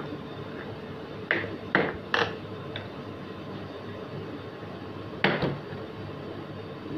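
Plastic snap latches of a Bosch tool carry case being flipped open: three sharp clicks in quick succession about a second in, then another click or two a few seconds later.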